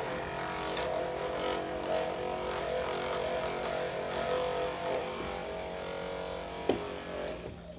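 Handheld electric percussion massager running against the lower back: a steady motor hum at an unchanging pitch that stops just before the end.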